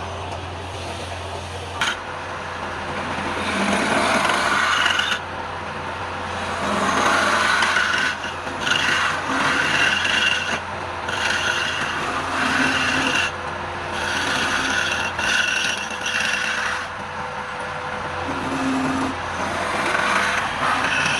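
A hand tool scraping against palm wood spinning on a lathe, in repeated passes about a second long with short breaks between them, each with a thin ringing tone.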